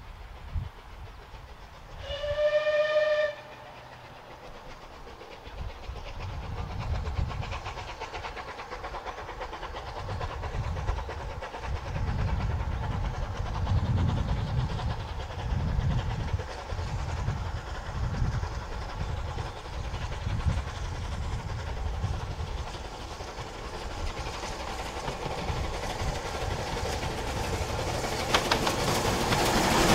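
Rebuilt Bulleid West Country class steam locomotive 34028 gives one short whistle about two seconds in. Its exhaust beats then grow steadily louder as it approaches with its train, and it is loudest near the end as it passes close by.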